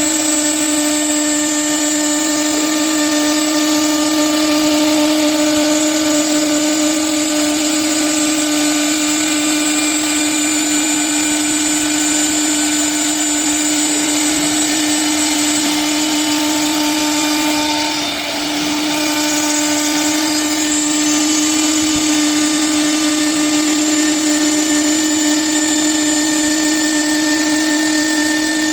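Blue Elephant ES4-3620 CNC bridge saw running: a steady motor hum with a high whine above it, dipping briefly about two-thirds of the way through.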